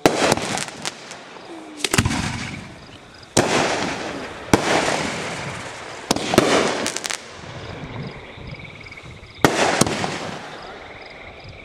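Fireworks going off: a rapid series of about ten sharp bangs, some in quick pairs, each trailing off over a second or so as aerial bursts scatter coloured stars.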